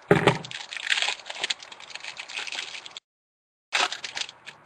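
Foil wrapper of a trading card pack crinkling and tearing as it is opened by hand, a dense crackling. The sound cuts out completely for under a second about three seconds in, then the crinkling resumes.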